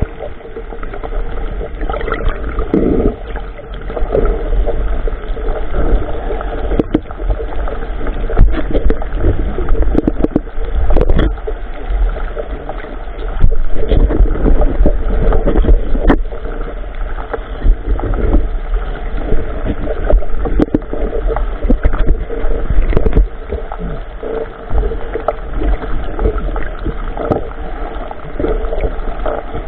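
Water sloshing around a small boat, with frequent short knocks over a steady low rumble.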